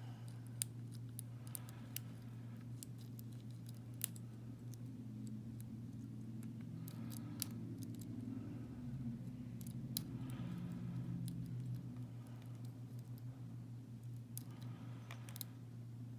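Lock pick working the pin stack of a Federal SS-series 730 padlock under light tension: scattered small metallic clicks and faint scraping, over a steady low hum.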